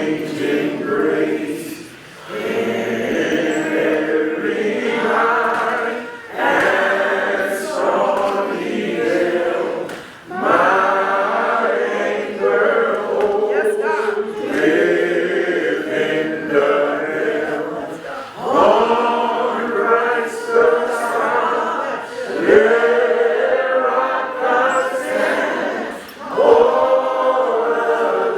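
A choir singing without accompaniment, in phrases about four seconds long with short breaks between them.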